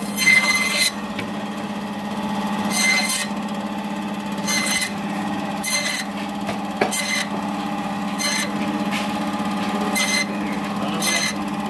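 Electric band saw running with a steady hum, its blade rasping through rohu fish flesh and bone in about eight short bursts, one every second or two, as pieces are pushed through.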